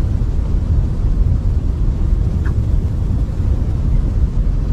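A steady, loud low rumble with no clear pitch, with a faint short higher sound about halfway through.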